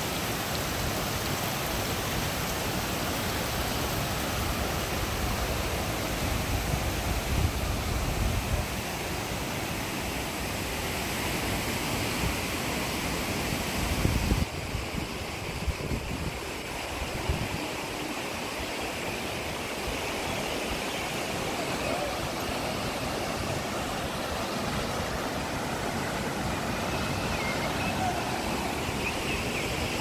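Steady rush of a river and waterfall below, broken by low rumbles about seven and fourteen seconds in.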